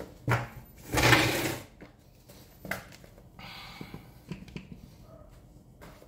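Handling noises as tools are set down on a concrete floor: a sharp knock, a louder half-second rush of noise about a second in, another knock, then a brief scraping rustle and a few light clicks.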